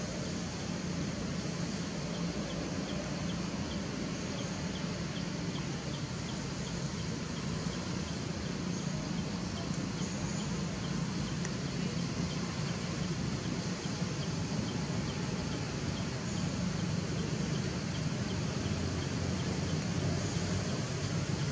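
Steady outdoor background noise: an even hiss with a low hum underneath, and a run of faint quick ticks about two to five seconds in.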